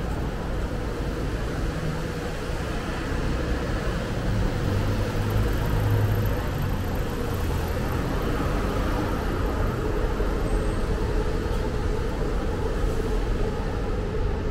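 Street traffic: a steady low rumble of motor vehicles, with one engine swelling louder about four to seven seconds in.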